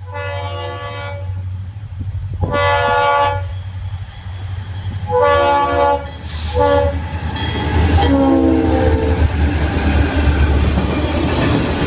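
Florida East Coast diesel locomotives blowing a multi-note air horn as they approach and pass: two long blasts, a shorter one and a quick short one, then a last long blast that drops in pitch as the locomotive goes by. Under the horn runs the low diesel engine rumble, and after that the passenger cars roll past with a clickety-clack of wheels on rail joints.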